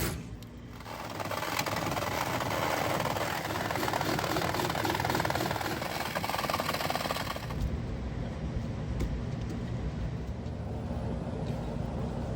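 A heavy engine running as a loud, rushing noise, changing about seven and a half seconds in to a lower, steadier rumble with a faint hum.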